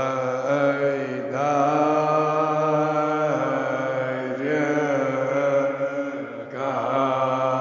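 An elderly man's solo voice chanting a Kashmiri marsiya, a mourning elegy, in long held melodic phrases. The phrases break briefly three times.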